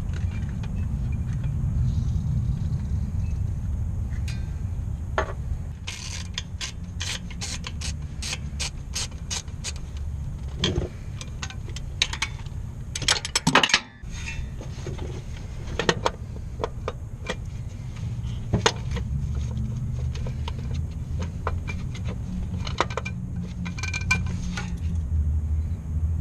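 3/8-drive socket ratchet clicking in irregular runs as a tight 14 mm starter mounting bolt is worked back and forth to free it, over a steady low rumble. The clicking is busiest in the middle, with a louder clatter about halfway through.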